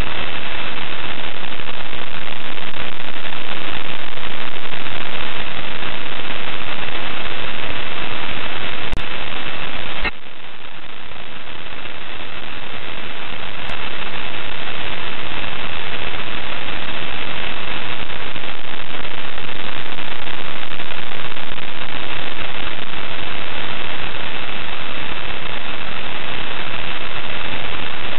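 Loud, steady static hiss from a live space-station video feed's audio channel, with a faint steady high whistle in it. About nine seconds in there is a click, then the hiss drops suddenly and slowly builds back up; a faint click follows a few seconds later.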